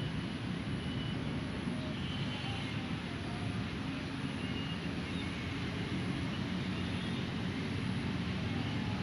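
Steady low rumble of vehicle traffic, with a few faint high bird chirps over it.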